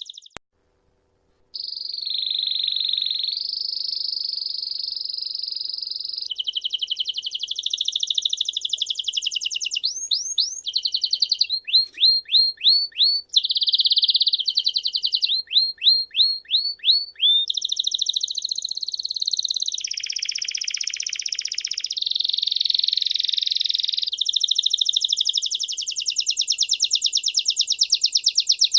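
Songbirds singing: fast high trills and runs of sharp sweeping chirps, the song changing abruptly every few seconds, after a brief silent gap near the start.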